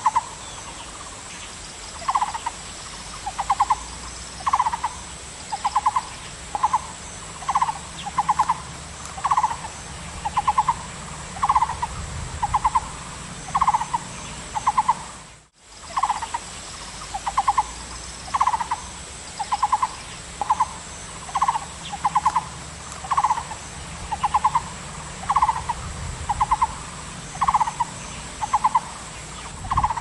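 Taiwan barbet calling: a steady run of short, low, rattling notes, about one and a half a second, with a brief break about halfway through.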